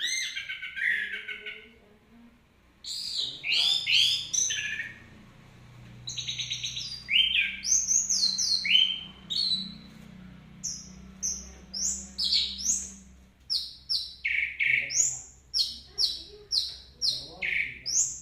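Orange-headed thrush singing a long, varied song of whistled phrases. From about twelve seconds in it repeats short notes at about two a second.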